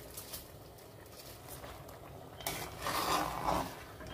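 Washed rice tipped from a plastic measuring cup into a pot of pumpkin and coconut-milk broth. About three seconds in, a metal spoon goes into the pot and stirs, a louder scraping swish lasting about a second.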